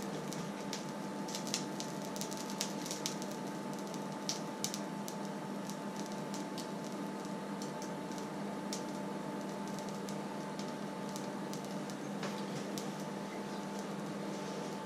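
Black steel pan heating with a film of oil on an electric glass hob: sparse light crackles and ticks, most frequent in the first few seconds, over a steady hum.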